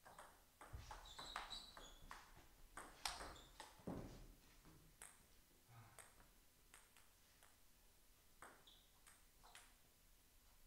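Table tennis ball in a rally: a quick run of sharp clicks from paddle hits and bounces on the table over the first four seconds or so, with a couple of dull thuds among them, then a few scattered lighter ticks of the ball after the point ends.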